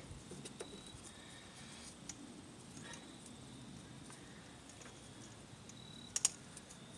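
Faint scattered metal clicks as a washer and nut are fitted by hand onto a throttle body mounting stud, with a sharper double click about six seconds in.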